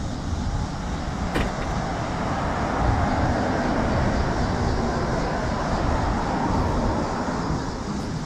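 A car driving past on the road beside the sidewalk, its tyre and engine noise swelling over a few seconds and then fading, over a low rumble. A short falling tone sounds about a second in.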